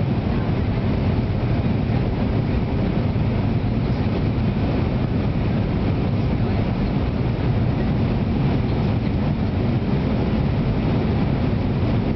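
Steady low roar inside the cabin of an Airbus A319 airliner in flight, descending to land, with no change in level.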